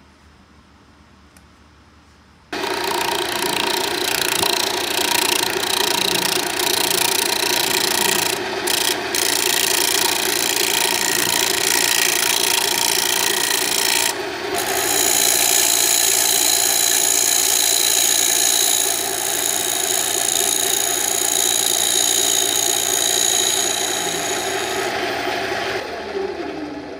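Wood lathe running with a steel turning chisel cutting the face of a spinning walnut plate: a steady motor hum under a continuous scraping cut. It starts abruptly a couple of seconds in and dies away near the end.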